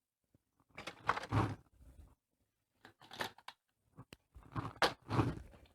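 Corrugated polyethylene plastic panels being handled and flexed, giving several short crunching, crackling bursts.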